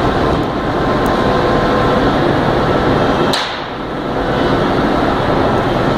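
Steady machinery noise of a woodworking factory's sanding shop, with a sharp click about three and a half seconds in.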